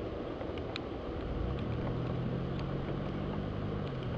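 Steady rushing noise of rain during a thunderstorm, with a few faint scattered taps of drops; a low steady hum comes in about a second and a half in.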